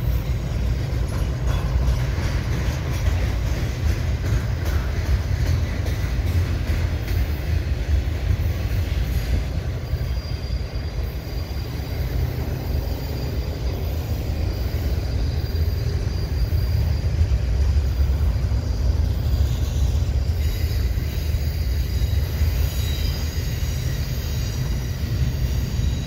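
Double-stack intermodal freight train's well cars rolling slowly past: a steady low rumble of wheels on rail. From about ten seconds in there is a faint high wheel squeal on the curve.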